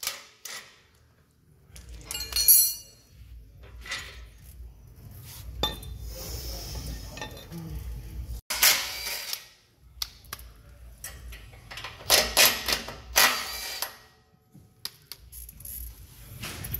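Hand tools and steel suspension parts clinking and clattering as a rear suspension link is unbolted and handled. There is a sharp ringing clink about two and a half seconds in, and denser bursts of clatter later on.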